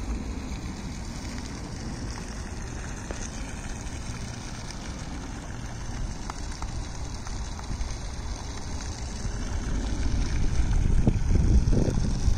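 Wind buffeting the microphone over a steady hiss of outdoor water noise, the buffeting growing stronger near the end.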